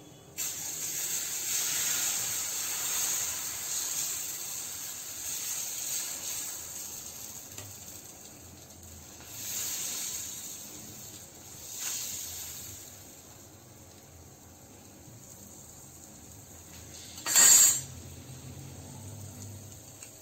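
Rice-flour crêpe batter sizzling as it is poured into a hot pan greased with mustard oil: the sizzle starts suddenly and fades over several seconds, then swells twice more as the batter is spread with a ladle. A short, louder clatter comes near the end.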